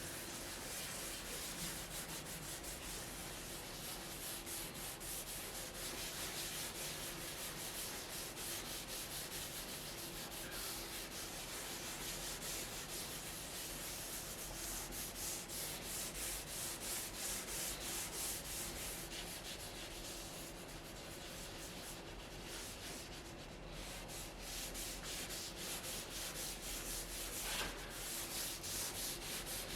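Sandpaper rubbed back and forth over wood in quick, even strokes, with no pause.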